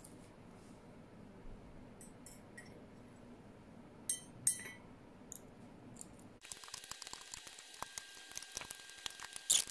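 Glass dropper pipette and a small amber glass bottle clinking lightly against a glass jar as liquid is dropped in. There are two sharper clinks about four seconds in, then a run of faint quick ticks through the last few seconds.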